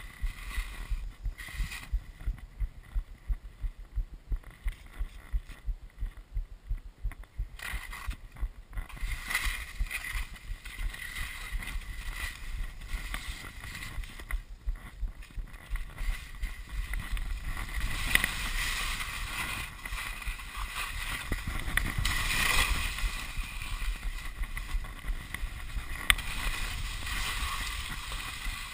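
Telemark skis scraping over firm, crusty snow on a steep descent, with wind rumbling on a chest-mounted action camera. The scraping comes in many short choppy strokes at first, then turns into a louder, steadier hiss past the middle.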